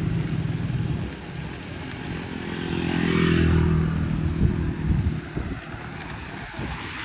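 Road traffic on a wet road: a motor vehicle's engine hums and its tyres hiss on the wet surface, growing loudest as it passes about three seconds in, then fading.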